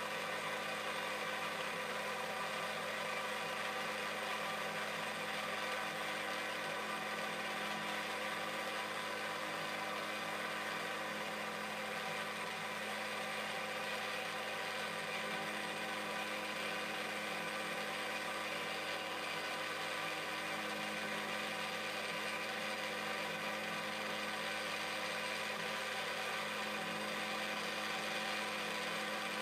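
The motor of a Quorn tool and cutter grinder running steadily, spinning a coarse straight grinding wheel: an even hum with a high whine that does not change in pitch or level.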